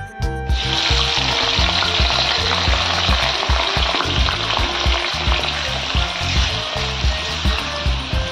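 Chopped onions, tomatoes, ginger and green chillies dropped into hot oil in a metal kadhai, setting off a sudden, steady sizzle as they start to fry. Background music with a steady beat runs underneath.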